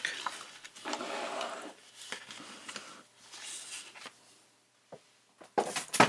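A sheet of heavy scrapbook paper sliding and rustling on a cutting mat as it is turned and positioned, with a few light knocks near the end.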